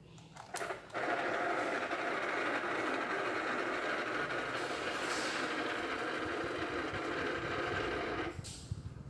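Regency turbo electric fan making an abnormal mechanical noise, the strange sound that marks a fault in the fan. It starts suddenly about a second in, runs steadily, and cuts off abruptly near the end.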